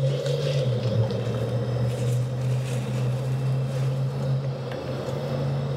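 Propane burner of a Coleman 4-in-1 camp stove running under its griddle top, a steady low hum over a faint hiss, just after being lit.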